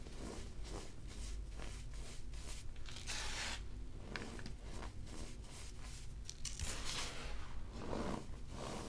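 Cornstarch, a crumbled block topped with baking soda, squeezed and crushed between bare hands, giving a run of squeaky crunches about two a second. There are louder squeezes about three seconds in and again near the end.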